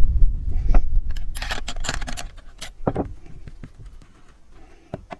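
Metal hand tools and small parts clinking, scraping and rattling against a chainsaw's housing as it is taken apart, with a dense cluster of clicks about a second and a half in and a few single clicks later. A dull low rumble in the first second.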